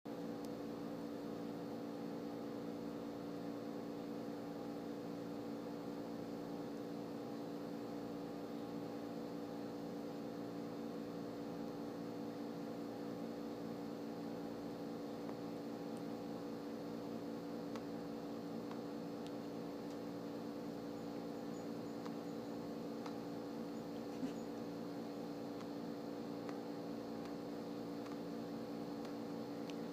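A steady electrical hum made of a few fixed tones, with one faint click about 24 seconds in.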